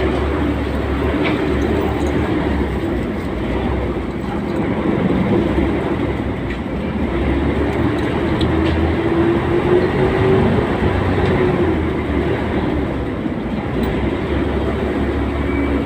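Cross-river ferry's engine running steadily, a loud low rumble under a steady rushing noise; a hum in it rises slightly in pitch about halfway through.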